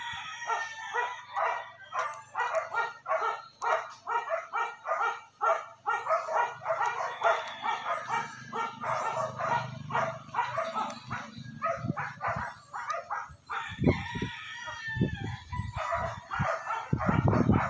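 Animal calls repeated rapidly, about three a second, for most of the time, then a few deep rumbling thumps on the microphone near the end.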